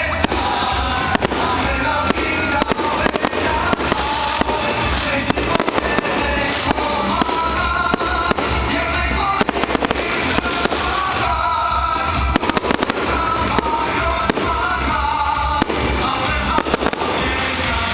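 Fireworks salute bursting in many sharp, irregular bangs over loud music with singing.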